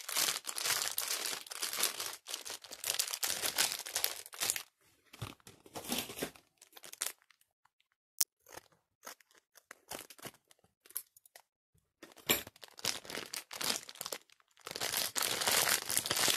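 Packaging around a new bicycle chain crinkling and rustling as it is handled, in bursts with short pauses, and one sharp click about eight seconds in.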